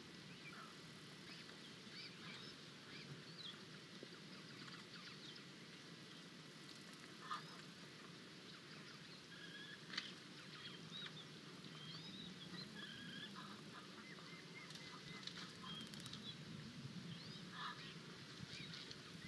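Faint bird calls, many short chirps, over a low steady hum, with two brief knocks about seven and ten seconds in.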